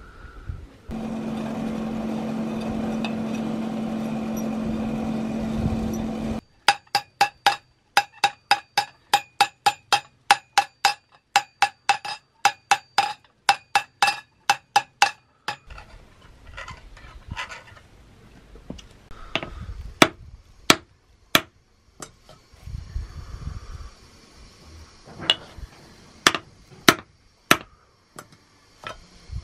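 Hammer blows on hot steel over an anvil during knife forging: a run of quick, regular, ringing strikes at about three a second, then slower, scattered blows. A steady motor hum runs for the first few seconds and stops suddenly just before the hammering starts.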